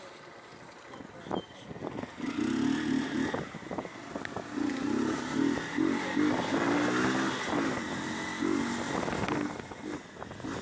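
Motorcycle engine accelerating, its pitch climbing and dropping back in steps as it shifts up through the gears, over wind noise on the microphone.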